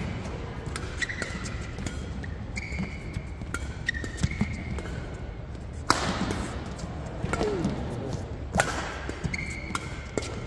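Badminton rally: rackets striking the shuttlecock with sharp cracks, the two hardest about six and eight and a half seconds in, with court shoes squeaking briefly on the floor between shots.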